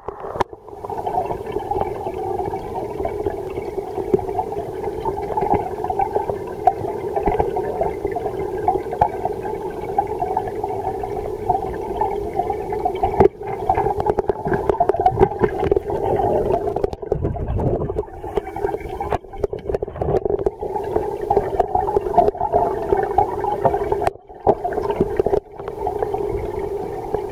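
Water in a live-fish tank heard underwater: a steady bubbling, gurgling drone, with a sharp knock about halfway through.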